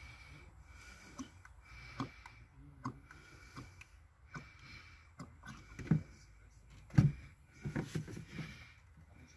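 Engine oil poured from a plastic jug through a funnel into the engine's oil filler, with irregular glugs and knocks; the two loudest come about six and seven seconds in, followed by a short cluster as the pour ends.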